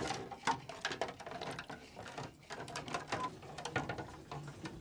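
Plastic home-brewing equipment being handled in a plastic tub of sanitizer solution: an irregular string of light clacks and knocks as pieces hit each other and the tub, the sharpest knock at the very start.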